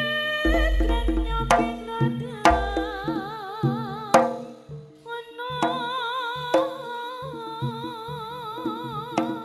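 Javanese jaranan ensemble music: hand drums beat a busy rhythm with deep bass-drum thumps and ringing gong tones. A long, wavering melody line is held above them, and several sharp cracks cut through at intervals.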